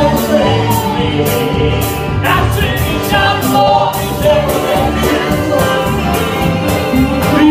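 Live gospel singing by male and female voices, accompanied by electric bass and piano over a steady drum beat.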